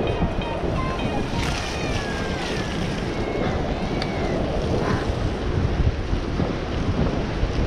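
Wind buffeting the microphone of a camera on a mountain bike, over the rumble and rattle of the bike rolling down a muddy forest trail. A few faint, high gliding tones come through the noise in the first half.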